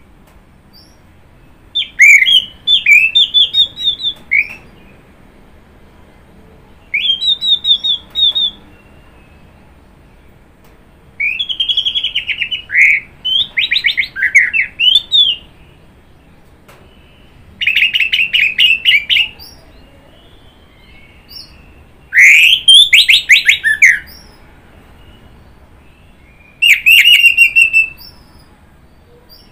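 Orange-headed thrush singing: six varied, warbling phrases of quick notes and pitch sweeps, each lasting one to four seconds, with pauses of a few seconds between them.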